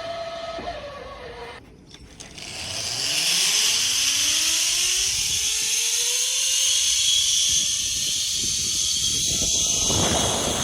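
Zip line trolley pulleys running along a steel cable: a whine that rises steadily in pitch as the rider picks up speed, over a rushing hiss. Near the start an earlier whine falls away and cuts out, and near the end the whine breaks into rough rumbling.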